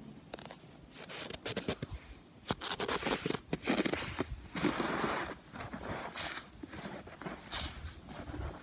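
Irregular rustling, scraping and crunching noises in uneven bursts, with a few sharp clicks; busiest from about three to five seconds in.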